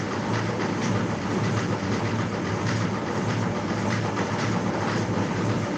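Washing machine running: a steady, noisy mechanical churn with a low hum underneath.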